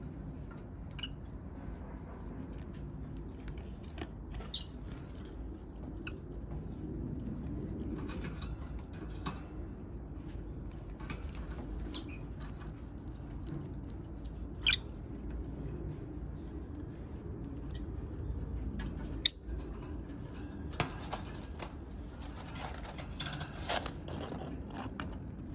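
Pet peach-faced lovebirds moving about: scattered small clicks and scratches over a low steady room hum, more of them together near the end. A single sharp click about 19 seconds in is the loudest sound.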